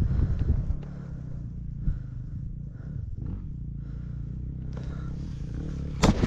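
Off-road motorcycle engine idling, a low steady rumble. Near the end, a few sharp knocks and a rustle as the camera is handled and picked up.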